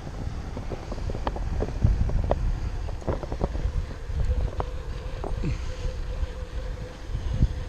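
Wind buffeting a GoPro action camera's microphone on a moving bicycle, a constant low rumble, with scattered short knocks and clicks from the bike rolling over the street. A faint steady hum joins about halfway through.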